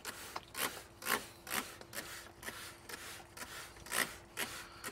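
Hand trigger spray bottle pumped in quick repeated squirts, about two a second, misting chlorinating liquid onto a vinyl seat.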